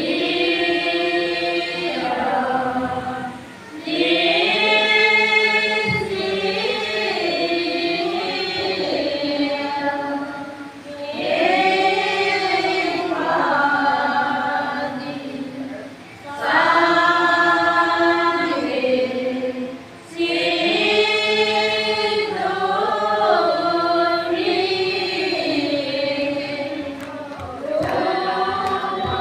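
A group of mostly women's voices chanting a Tibetan Buddhist prayer in unison, as a melodic sung chant. It goes in long held phrases broken by brief pauses every few seconds.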